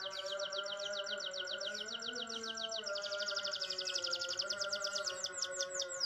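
Green canary singing a rolling song: a fast run of high repeated chirps that quickens into a tighter trill about halfway, then breaks into slower falling sweeps near the end. A steady low droning tone runs underneath.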